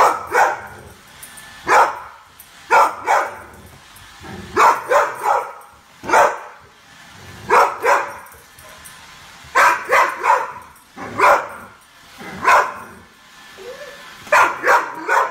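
A dog barking repeatedly at a robot vacuum cleaner, in short groups of one to three barks about every second or two: wary alarm barking at the machine.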